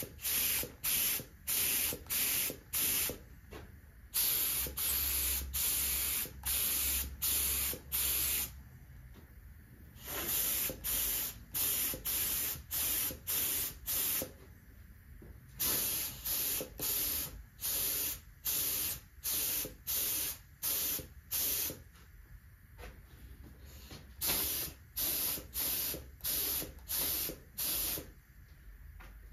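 Gravity-feed paint spray gun hissing out primer in short trigger pulls, about two a second, in runs broken by pauses of a second or two, as filled spots are spot-primed. A faint low hum runs underneath.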